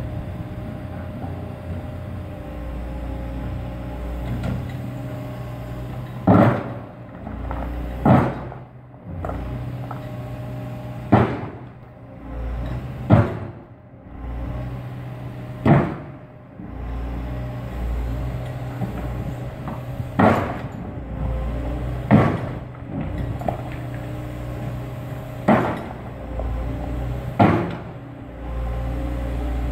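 Liebherr tracked excavator's diesel engine running steadily under hydraulic load, with about nine sharp, loud clunks every two to four seconds as the steel bucket strikes and presses the large riprap stones into the bank.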